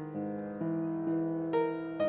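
Background score on piano: a slow line of single struck notes over held chords, each note fading away before the next.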